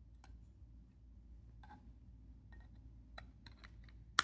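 Faint clicks and taps of a clear acrylic magnetic card holder being handled, then one sharp, loud click near the end as its lid snaps shut.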